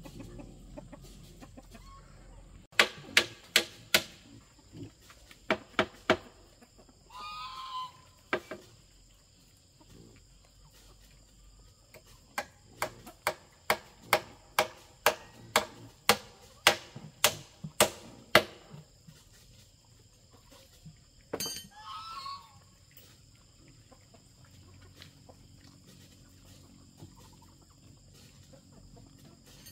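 Sharp knocks in runs, like blows from a hand tool: a few early on, then a long run of about two a second. A chicken calls twice between the runs.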